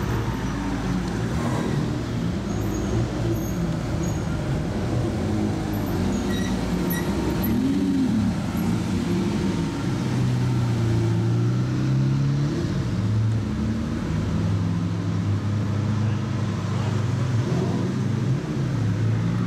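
Bugatti EB110 GT's quad-turbo V12 running at low speed, with a short rise and fall in revs about eight seconds in and a steady, louder drone after that.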